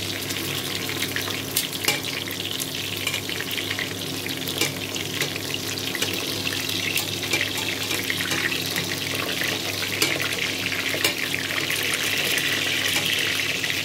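Cubes of pork belly sizzling and crackling as they fry in oil in a stainless steel pot, turned with metal tongs. The hiss thickens a little near the end.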